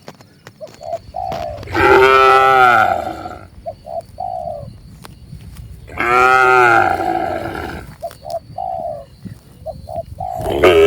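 Cattle mooing: two long moos, each rising then falling slightly in pitch, with a third beginning near the end. Short low cooing notes, likely a dove, sound in the gaps between the moos.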